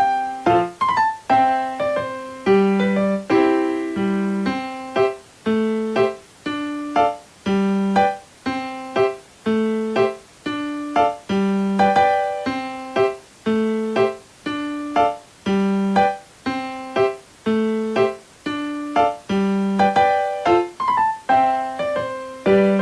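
Background music: a piano or electric-piano tune with rhythmic, decaying notes and a bass line repeating about once a second.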